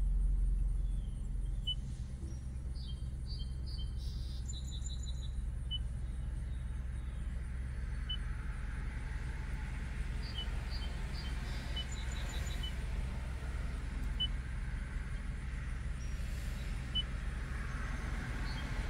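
Low steady hum of a stopped car idling, heard from inside the cabin. It eases down a little in the first second. Birds outside give short high chirps, some in quick runs of three or four, a few seconds in and again midway.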